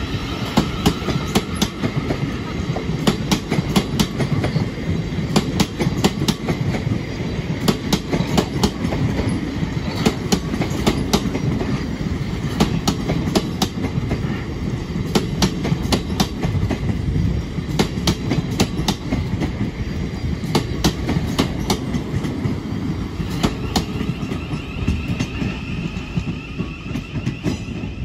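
Two coupled Class 707 Desiro City electric multiple units pulling out and passing close by: a steady rumble of wheels on rail, with rapid clicks and clacks as the wheels run over the points. The sound fades a little near the end as the train draws away.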